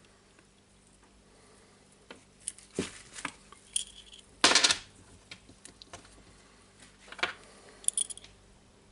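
Small steel gears and parts of a Milwaukee M18 FID2 impact driver's gear and hammer assembly clicking and clinking as they are fitted together by hand. Scattered clicks, a short rattling clatter about halfway through, and a couple of brief ringing clinks.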